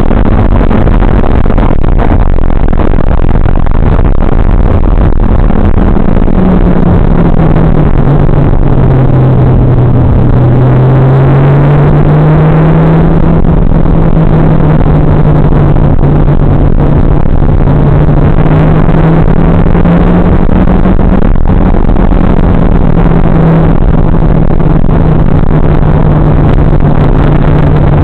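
Mitsubishi Lancer Evolution X GSR's turbocharged 2.0-litre four-cylinder running hard on track. The engine note drops about a third of the way in, then climbs again and holds. It sits under a constant wall of loud, distorted noise from an overloaded recording.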